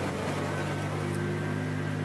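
Steady engine drone and road noise heard inside a vehicle's cab while driving, with the defroster blower running on high; the engine note shifts slightly just after the start.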